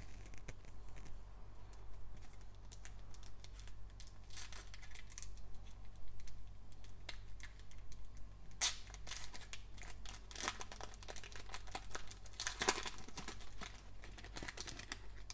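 Foil wrapper of a Panini Optic basketball card pack being torn and peeled open by gloved hands: irregular crinkling and crackling, with louder ripping bursts a little past halfway and again about two-thirds through.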